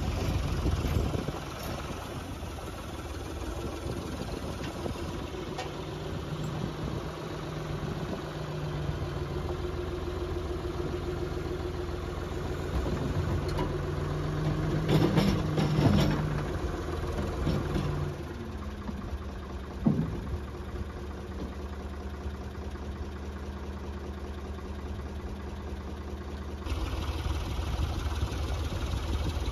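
Backhoe loader's diesel engine running steadily while it lifts scrap tractor carcasses, with a cluster of metal clanks about halfway through and a single knock a few seconds later.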